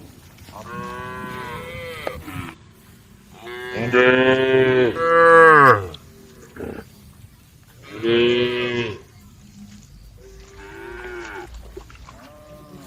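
Cows mooing, calling to the herd: about four long calls, the loudest just before the middle and the last one faint.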